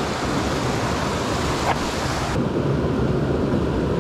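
Mountain creek water rushing steadily. About two and a half seconds in, the bright hiss drops away abruptly, leaving a duller rush.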